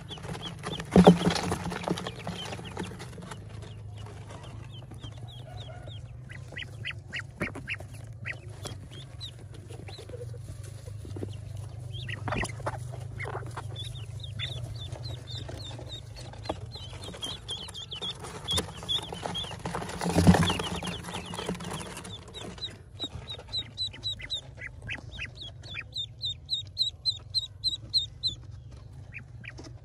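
Pekin ducklings peeping: short, high peeps repeated in runs, coming fastest and most steadily near the end. A loud knock sounds about a second in and another about twenty seconds in, over a steady low hum.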